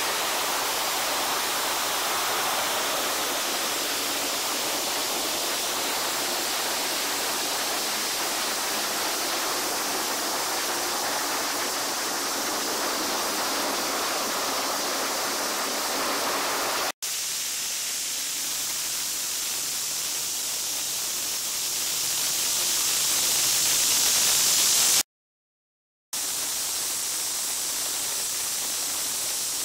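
Istobal M'Nex 25 car wash spraying water over a car, a steady hiss of spray. It grows louder just before cutting out for about a second near the end.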